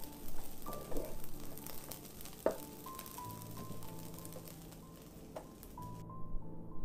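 Fried rice sizzling in a wok as it is stirred and tossed with a spoon, with a few sharp scrapes or knocks of the spoon against the pan; the sizzle cuts off near the end. Soft background music with slow, held notes plays under it.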